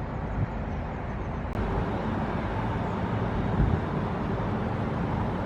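Steady street vehicle noise with a low hum underneath.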